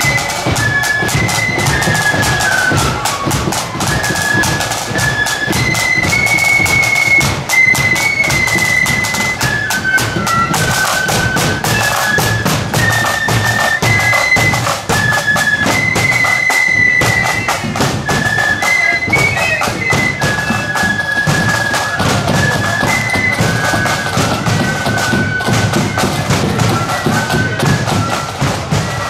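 Marching flute band playing a tune: flutes carry a high melody in unison over steady side drum and bass drum beats.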